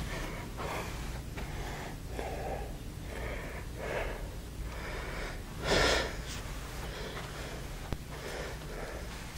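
Soft breathing close to the microphone, short noisy puffs coming about every second, with one louder sniff-like breath about six seconds in, over a low steady hum.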